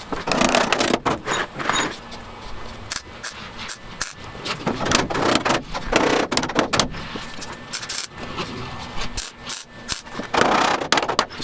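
Sheet-metal work on a car body's door-jamb patch panel: irregular sharp metallic clicks and taps, with a few short noisy bursts about a second long near the start, in the middle and near the end.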